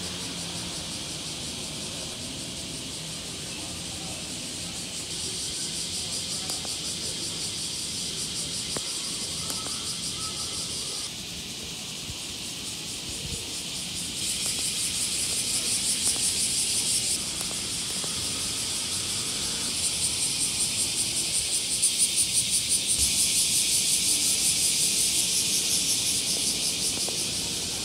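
Cicadas singing in chorus: a high, fast-pulsing buzz that swells and fades in waves and is loudest over the second half.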